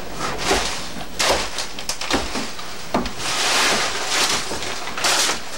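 Footsteps knocking on a wooden stage floor with scuffing and rustling through loose paper strewn underfoot: several separate steps, then a longer rustle about two-thirds of the way through and another near the end.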